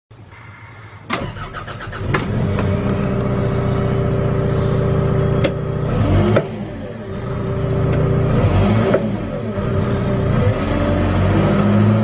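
John Deere 310J backhoe's four-cylinder diesel engine started with the key, heard from inside the cab: quiet for about a second, a brief crank, then it catches and runs steadily, its pitch shifting briefly about six and nine seconds in.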